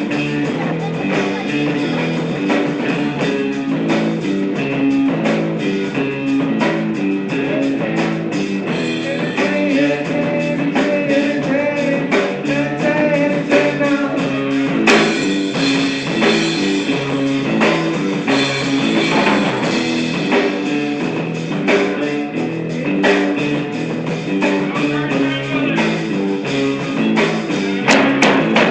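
Rock-style music with guitar and a drum kit keeping a steady beat.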